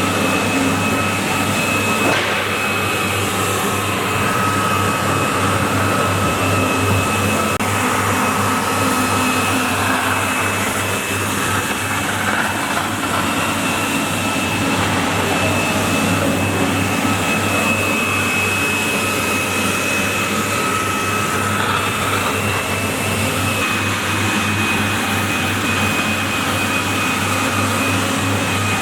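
Walk-behind floor scrubber-dryer running steadily: a low motor hum and a rushing suction noise with a steady high whine over it.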